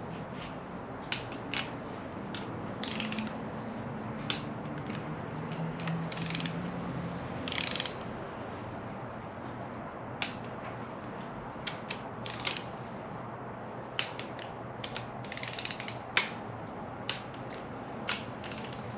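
Hand ratchet or torque wrench tightening the oil pump bolts on a Toyota 1JZ-GTE engine block to torque. Short runs of ratchet clicking alternate with sharp single clicks.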